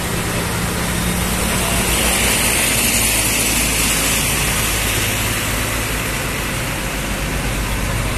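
Diesel engines of tour coaches running steadily as the buses move slowly past at close range, a low engine hum under road noise.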